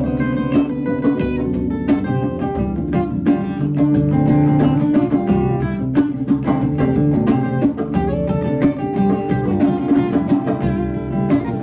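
Small band playing an instrumental passage: guitar over bass guitar and a drum kit keeping a steady beat.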